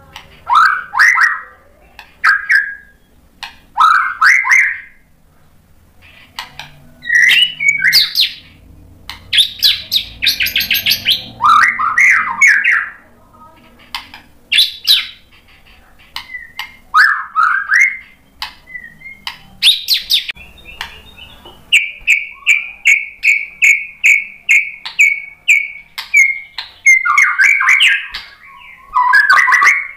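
Male white-rumped shama (murai batu) singing in full voice: loud, varied phrases of rising and falling whistles and quick trills, broken by short pauses, with a run of rapid repeated notes on one pitch past the middle. The song is its repertoire of learned, mimicked phrases (isian).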